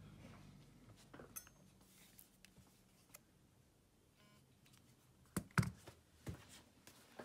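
Faint clicks and light taps of small parts and tools being handled during a smartphone repair. The loudest is a quick pair of clicks about five and a half seconds in.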